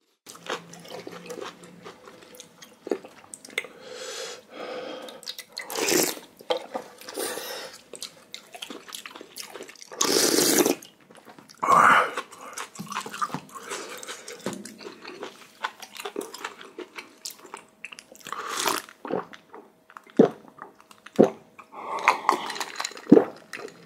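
Eating sounds: spoon and bowl clicks, several second-long slurps of ramen broth with rice mixed in, and chewing.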